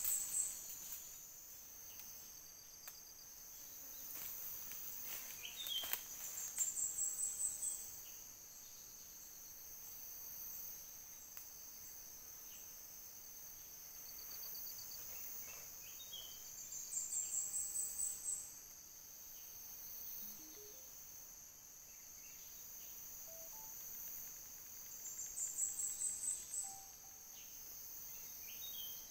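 Steady high-pitched chorus of crickets and other insects. Three times, about ten seconds apart, a louder run of rapid high notes rises in pitch over a second or two.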